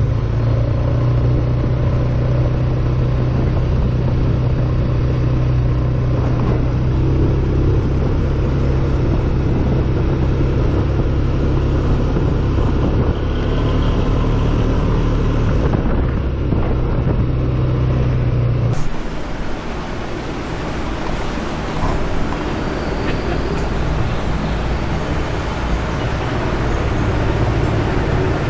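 Polaris ATV engine running steadily as it is ridden along. About two-thirds of the way through, the engine sound cuts off abruptly and gives way to a steady hiss-like noise.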